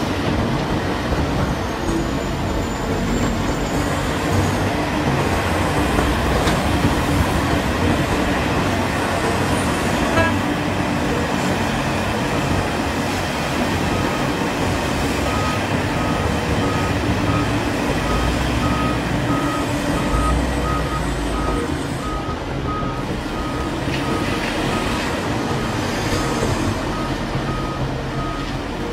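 Large hydraulic mining excavator working as it loads a haul truck: a steady, loud diesel engine drone. From about halfway through, a warning alarm beeps over it in an even series of short beeps.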